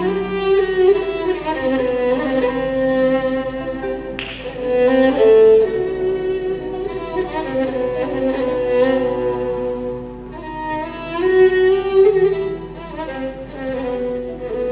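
Turkish art music ensemble playing the instrumental introduction to a song, with bowed strings (violin over cello) carrying an ornamented melody with slides. A brief sharp click sounds about four seconds in.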